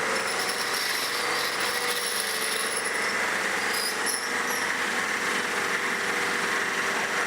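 Tire-shop machinery running steadily, a whirring noise with a thin high whine.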